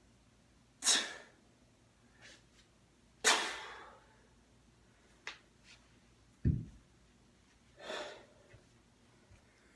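A kettlebell lifter's sharp, forceful breaths out through the mouth: two loud ones about a second and three seconds in, and a softer one near the end. A dull low thud about six and a half seconds in as the cast iron kettlebell is set down on the floor.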